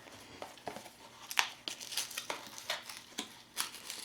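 Packaging of a Funko Mystery Minis blind box being torn open and crinkled, an irregular string of crackles and sharp snaps, the loudest about a second and a half in.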